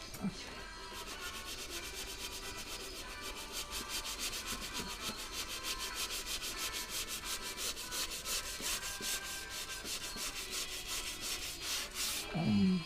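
Sandpaper rubbed back and forth over a car body panel in quick, even strokes, several a second, with faint music underneath. A brief louder low sound that falls in pitch comes near the end.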